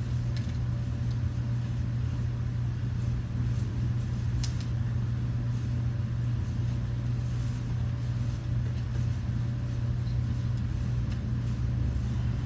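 Steady low hum throughout, with a few faint clicks and rustles as the seat mesh is stretched and worked over the seat frame by hand.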